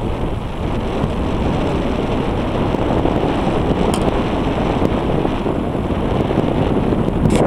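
Steady wind rumble on the microphone, with two faint clicks, one about halfway through and one near the end.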